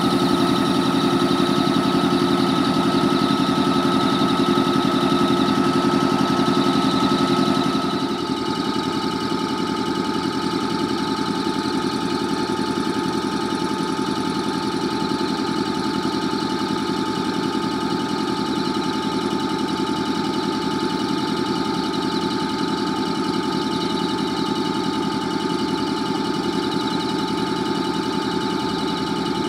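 Air compressors of two stabled JR Kyushu 415 series 100 (steel-bodied) electric trains running: a steady mechanical drone with several held tones. They are building up air pressure as the trains are readied for service. About eight seconds in the sound changes pitch and gets a little quieter.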